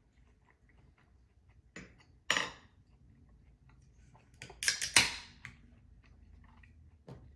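A metal fork clatters as it is set down on a wooden cutting board about two seconds in. About five seconds in comes a quick cluster of sharp clinks and knocks as an aluminium beer can is handled on the board, and there is one more small knock near the end.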